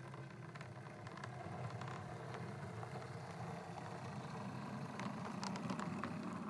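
Bachmann Class 57 00 gauge model locomotive running along the track: a steady motor hum with scattered light clicks, getting a little louder as it passes close by.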